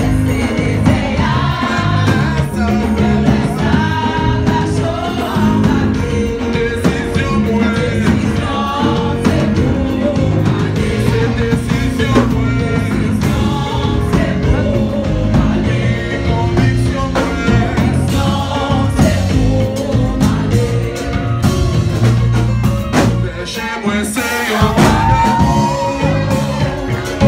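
Gospel praise team singing into microphones over a live band of drum kit, keyboard and guitar, loud and steady throughout.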